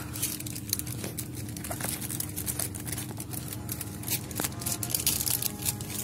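Clear cellophane packaging crinkling in irregular crackles as a packaged carnival costume set is handled, over a steady low hum.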